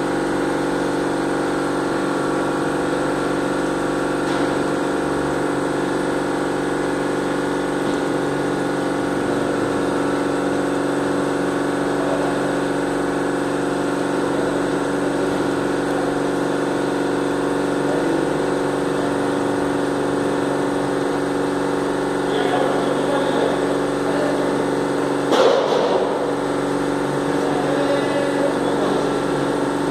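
Steady machine hum of the pump driving a brewery whirlpool, mixed with water swirling in the tank. A short louder disturbance breaks in late on.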